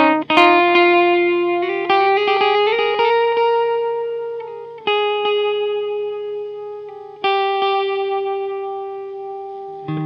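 Clean electric guitar, a Fender Custom Shop 1956 Stratocaster played through an Echoplex EP-3 tape echo. A few quick picked notes open the passage, with a slight upward bend near three seconds. Then long single notes are struck about five and seven seconds in and left to ring and fade.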